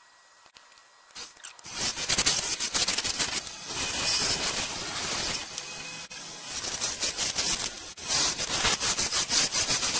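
A turning tool cutting a spinning persimmon handle blank on a wood lathe: a loud, hissing, scraping cut that starts about a second and a half in and runs on with two brief pauses.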